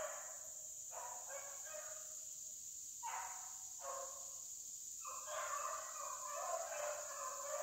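A pack of rabbit hounds baying on a rabbit's track: several voices in overlapping, drawn-out bays that come in bouts. A steady high insect buzz runs underneath.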